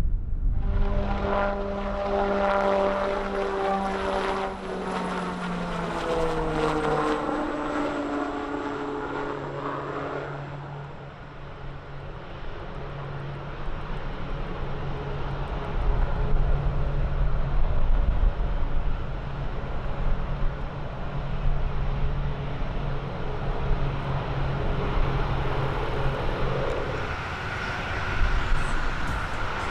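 Propeller airplane's engine passing close by, its tone and a high whine dropping in pitch as it goes past, then running on at a lower steady pitch, with wind rumble on the microphone.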